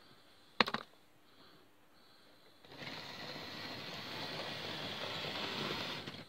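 Hornby Terrier OO-gauge model locomotive running along the track: a sharp click about half a second in, then a steady mechanical whirr of the small motor and wheels on the rails from nearly three seconds in, cutting off suddenly near the end.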